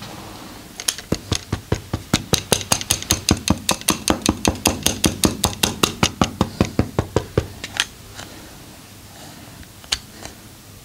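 Percussive hand massage: a masseur's hands slapping rapidly and rhythmically on a client's body, about five or six strikes a second for some seven seconds before stopping. One or two more single sharp slaps come near the end.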